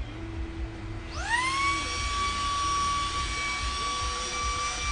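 Simplicity S5 cordless handheld vacuum switched on about a second in: its motor spins up with a rising whine, then runs steadily at a high pitch.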